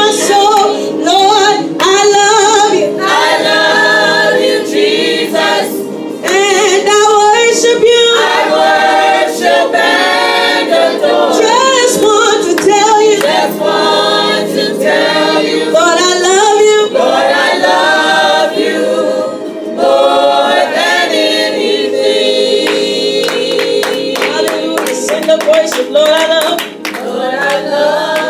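Small church choir singing a gospel song. Sharp, fast claps join in during the last few seconds.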